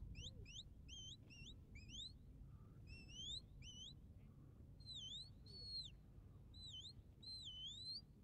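Sheepdog handler's whistle commands to working dogs: a quick run of short rising notes, then four longer notes that dip and rise again.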